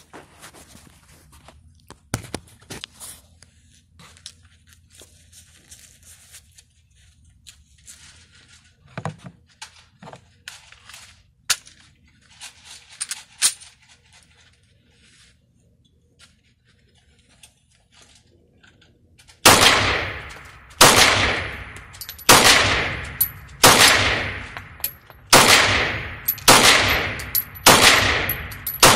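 Small clicks and clatter of a pistol and magazines being handled, then, about two-thirds of the way in, a series of pistol shots at a steady pace, about one every second and a half. Each shot rings on and fades in the reverberant indoor range.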